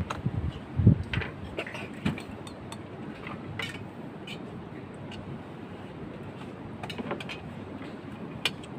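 Spoons and aluminium plates clinking and scraping as cooked rice is served out onto the plates, with a low knock against the wooden deck about a second in. A steady background hiss runs underneath.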